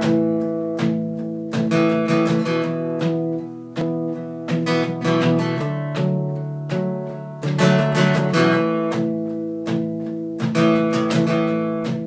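Acoustic guitar strummed, its chords struck again and again and left ringing between strums.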